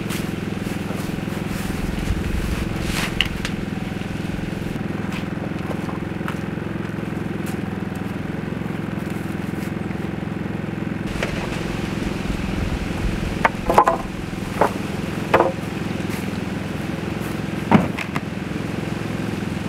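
A steady mechanical hum, like an engine or motor running, with a few short knocks and clatters in the second half, the loudest near the end.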